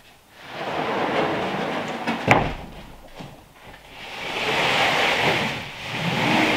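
Sheets of 3/4-inch OSB tongue-and-groove subflooring scraping as they are slid one over another onto a stack, in two long slides. A sharp knock between them, about two seconds in, as a sheet drops onto the pile.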